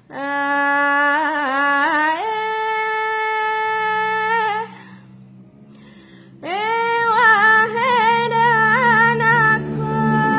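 A woman singing lagam Alas, the traditional vocal style of the Alas people: two long phrases of held notes with quick ornamented turns, a short pause between them. A low, steady backing sound comes in about halfway.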